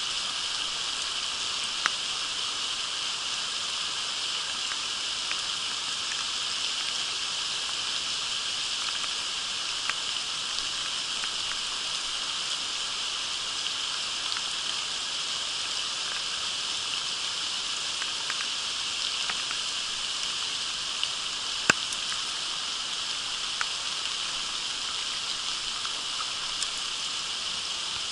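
Steady hiss of rain with a shallow creek running over stones, broken by a few sharp ticks of raindrops striking close by. The loudest tick comes a little over 20 seconds in.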